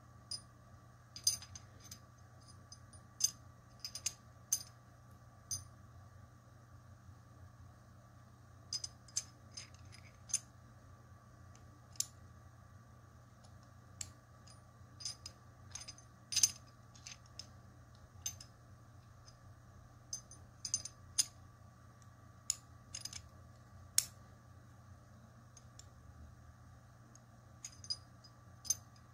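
Metal pieces of a Diamond disentanglement puzzle clicking and clinking against each other as they are turned and fitted together. The clicks are sharp, irregular and spaced by pauses, each with a brief metallic ring.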